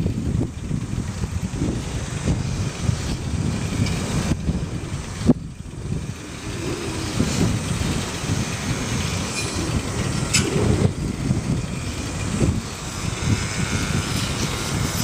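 Wind and road rumble on the microphone of a camera riding on a moving bicycle: an uneven low rumble that rises and falls, with a sharp click about five seconds in.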